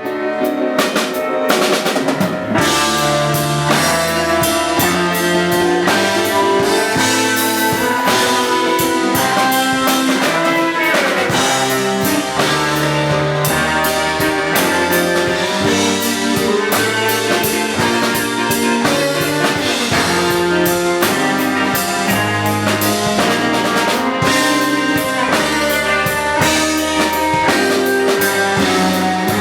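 Instrumental rock-jazz band music: a drum kit with snare, rimshots and bass drum driving under a moving bass line and pitched melodic instruments. It starts abruptly and stays loud and busy throughout.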